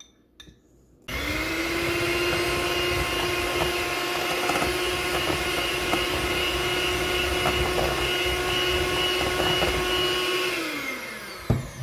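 Master Chef electric hand mixer running at a steady speed, its beaters whipping eggs and powdered sugar into sponge-cake batter in a stainless steel bowl. It starts about a second in and winds down and stops near the end.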